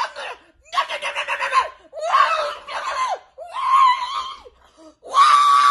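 A person screaming in a run of high-pitched shrieks, each about a second long with short gaps between. One about a second in is broken up into quick pulses, like a shrieking laugh.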